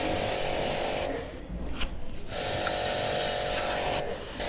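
Electric pressure washer running: a steady motor hum with the hiss of the water jet, spraying the scooter's back wheel. It stops twice, for about a second just after the start and briefly near the end, then starts again.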